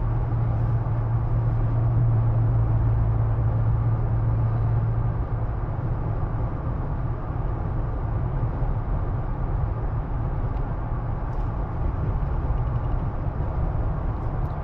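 Cabin noise inside a moving 2024 Jeep Wrangler Rubicon: steady road and wind rush over a constant low hum, easing slightly about five seconds in.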